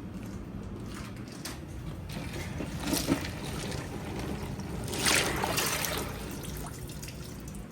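Ice water splashing and dripping as dressed chickens are lifted out of their ice bath, with a louder splash about five seconds in. A steady low hum runs underneath.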